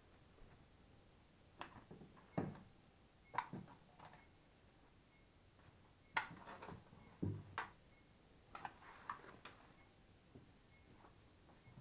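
Cling film being pulled off its roll and pressed down around a metal roasting tray: irregular light taps and crinkles.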